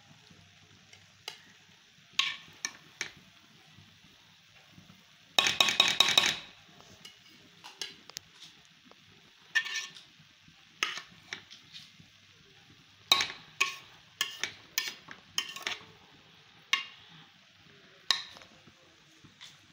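Metal spoon clinking and scraping against a metal cooking pot as cooked rice is turned, in irregular strokes with a quick run of clinks about five seconds in and several more groups in the second half.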